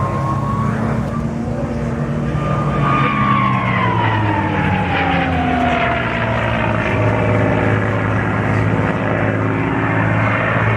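P-51D Mustang's Packard Merlin V-12 engine and propeller running hard in a fly-by. The pitch falls as it passes, and the sound grows louder over the first few seconds and then holds.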